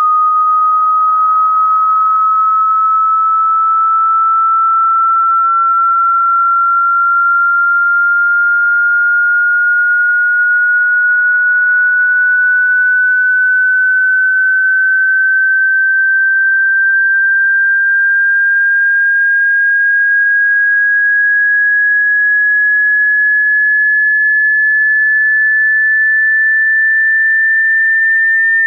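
Electronic sine-wave test tone: a single pure, loud tone gliding slowly and evenly upward in pitch. It is part of a slow frequency sweep used to test loudspeaker response.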